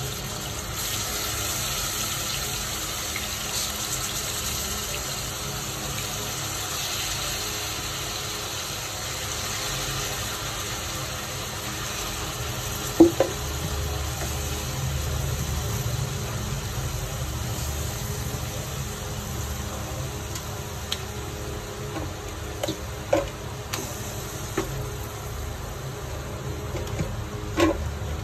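Marinated chicken pieces sizzling steadily as they fry in hot coconut oil, with a few sharp knocks, the loudest about halfway through, as more pieces are set into the pan.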